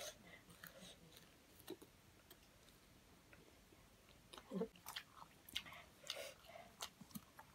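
Faint close-up chewing and mouth clicks from people eating dried fish and fresh herb leaves by hand. Sparse through the middle, with a cluster of crisp clicks and crunches from about four and a half seconds in.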